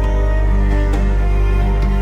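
Dark ambient music: sustained, layered chords over a deep, steady bass drone, with a few soft note onsets.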